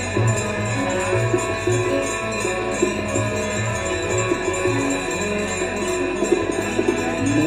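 Hindu devotional aarti music with jingling metal percussion and a steady low beat under held sung or played notes.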